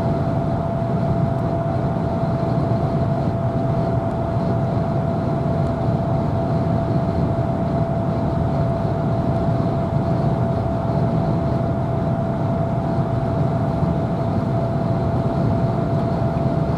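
Steady road and tyre noise of a car driving at highway speed, heard inside the cabin, with a constant mid-pitched whine underneath.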